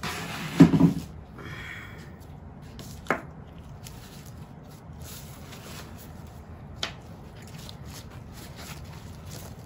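Handling noises at a painting table: a loud thump about half a second in, then two short sharp clicks a few seconds apart, over faint room noise.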